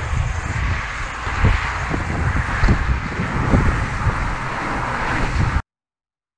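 Wind buffeting the microphone over a steady wash of road traffic from cars passing on the highway bridge alongside. The sound cuts off abruptly to silence near the end.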